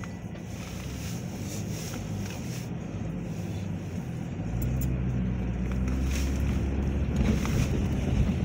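Car engine and tyre noise heard from inside the cabin as the car pulls away from a stop on a wet road, the low rumble growing louder about four and a half seconds in as it moves off across the tracks.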